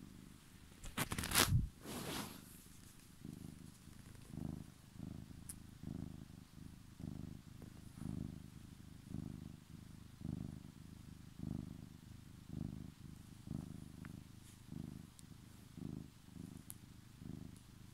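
Domestic cat purring close up, the purr swelling and easing with each breath about once a second. About a second in, a loud brief rustle covers it.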